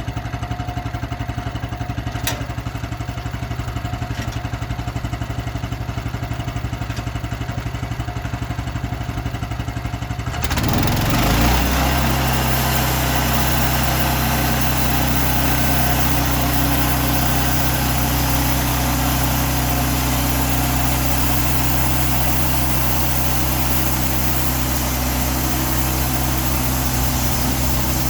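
Portable sawmill's gasoline engine idling with a steady pulse. About a third of the way in it is throttled up and runs steadily at higher speed, louder and fuller.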